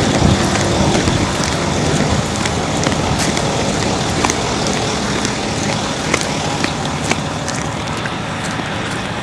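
Handling noise from a hidden camera carried while walking outdoors: wind on the microphone and clothing rubbing over it, with scattered small clicks and knocks.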